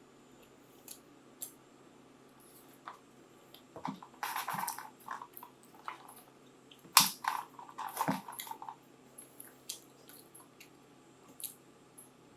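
Close-miked eating sounds: scattered small mouth clicks and smacks, with two louder spells of wet chewing or slurping, about four and about seven seconds in.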